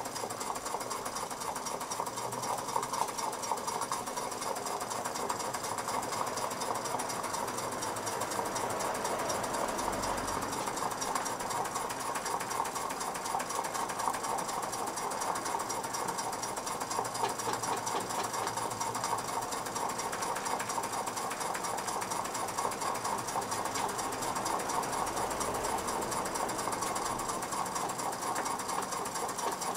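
Mamod SP8 "James Watt" model steam beam engine running steadily on a very small regulator opening, giving a fast, even mechanical beat.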